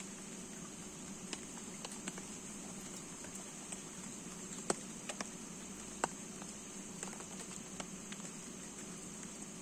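Light rain falling, with scattered sharp drop ticks over a steady hiss of rain, the drops pattering on a plastic raincoat close by.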